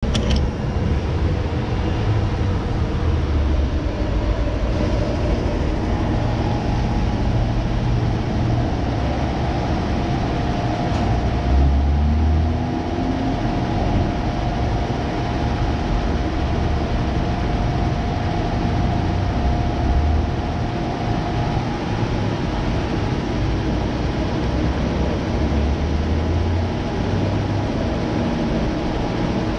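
Steady low rumble of road traffic on an outdoor petrol station forecourt. A faint steady whine comes in about ten seconds in and stops about twenty-one seconds in.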